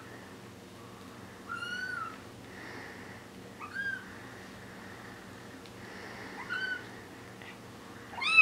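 Four-week-old Bengal kittens mewing: about four thin, high-pitched mews, roughly two seconds apart, the last near the end the loudest.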